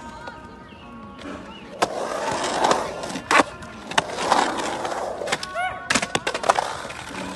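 Skateboard wheels rolling over a concrete skate bowl, broken by sharp clacks of the board, the loudest about a third of the way in and a quick run of them near the end.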